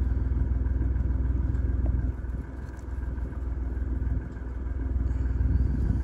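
Car engine idling, heard right at the tailpipe as a steady low exhaust rumble that drops in level about two seconds in and builds again toward the end.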